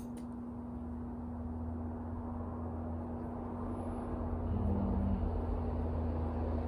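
Steady low background rumble with a constant hum, growing a little louder about halfway through. A sharp snip of pruning shears cutting back a bush branch comes right at the start.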